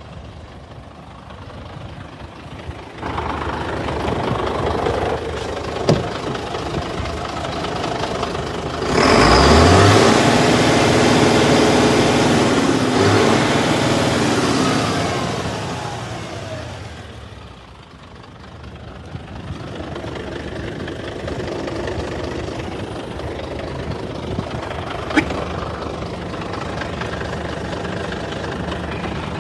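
Scania 94 310 truck's nine-litre inline-five diesel idling. About nine seconds in its pitch rises and it runs much louder for several seconds, then settles back to a steady idle. A sharp click comes near the end.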